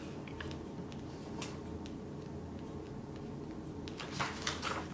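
Low, steady room hum with a few soft ticks and light rustles from hands handling a glossy magazine's pages, a little busier about four seconds in.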